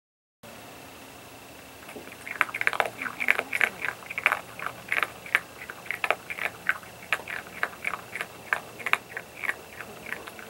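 Virginia opossum chewing cat food: an irregular run of sharp crunches, about three a second, starting about two seconds in and thinning out near the end.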